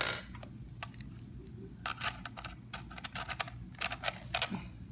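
Scattered small clicks and taps from a vape tank being unscrewed and handled while its coil is swapped.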